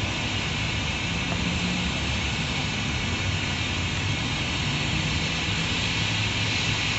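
A 15-inch gauge miniature railway train running steadily: a low engine hum under a constant hiss.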